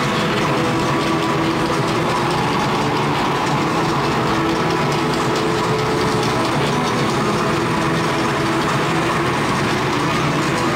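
Steady din of a packed football-stadium crowd, with held tones running through it.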